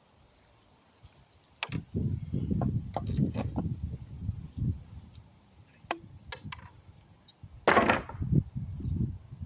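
Wooden pallet planks being worked and handled: a run of knocks and rough scraping of wood about two seconds in, then a short, sharp scrape or crack near the end followed by a few more knocks.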